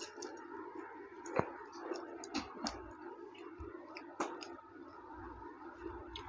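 Close chewing and mouth sounds of people eating rice and chicken curry by hand, with scattered sharp clicks, the loudest about one and a half seconds and four seconds in.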